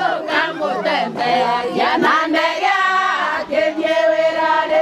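A group of women singing together, holding long notes in the second half.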